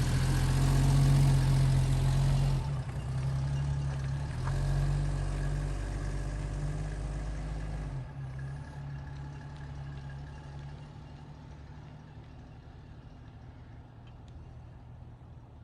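1975 AM General DJ5-D Postal Jeep's engine running as the Jeep drives away, loud at first, then falling off sharply about eight seconds in and fading to a faint hum.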